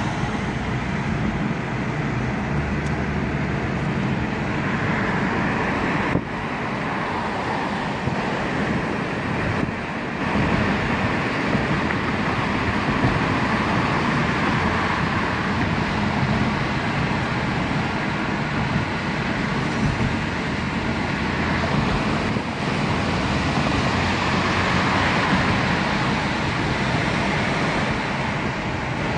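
Steady road noise heard from inside a moving vehicle at speed: tyres and engine running, with gentle swells in level.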